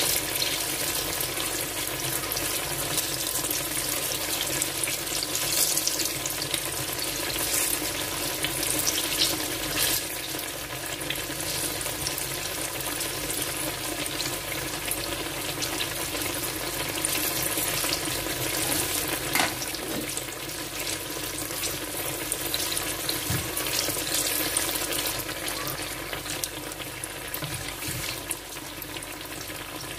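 Egg-and-flour battered eggplant slices shallow-frying in hot oil: a steady sizzle that keeps up throughout.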